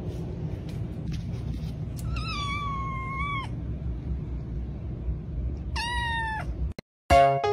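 Kitten meowing twice, high pitched: one long call bending down and up a couple of seconds in, and a shorter one near the end, over a steady low rumble. Music starts just before the end.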